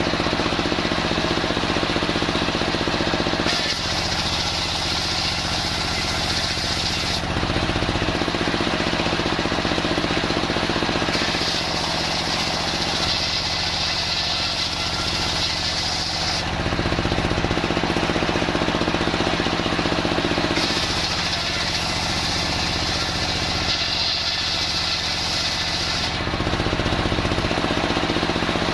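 Homemade circular sawmill running, a steady low machine hum under a higher hiss that comes and goes every four to five seconds as the saw works through old timber.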